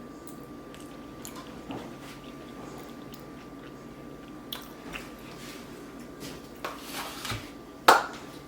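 A person chewing a mouthful of jailhouse brick (chips, instant noodles, bean dip and pickle): soft, wet mouth clicks, more frequent in the second half, with a louder one near the end.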